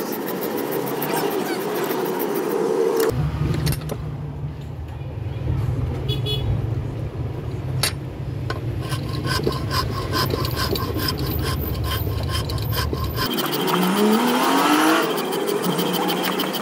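Hand file rasping on a knife blade forged from ball-bearing steel, clamped in a vise, with motor traffic passing in the background. For about ten seconds in the middle a steady low hum with a run of quick even ticks takes over.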